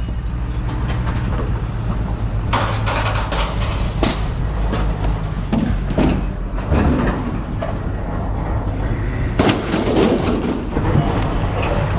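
Scrap auto parts being thrown off a truck: irregular metal clanks and bangs, the biggest about two and a half, four, six and nine and a half seconds in, over a steady low rumble.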